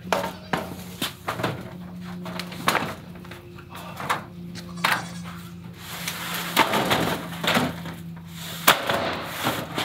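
Metal roofing tin being lifted and laid across a wooden frame: irregular clatters, knocks and scrapes as the sheets bang and slide on the boards, with the sharpest bang near the end.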